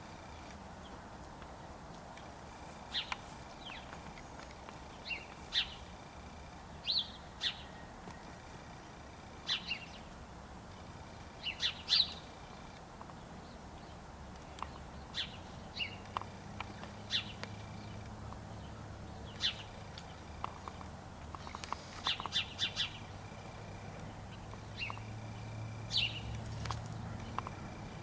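Small birds chirping: short, high chirps scattered a second or two apart, some in quick clusters. A low steady hum comes in about halfway through.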